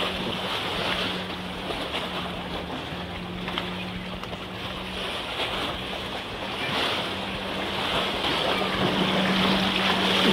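Sea waves washing and splashing against the rocks of a concrete tetrapod breakwater, with wind on the microphone and a steady low hum underneath. The wash grows louder near the end.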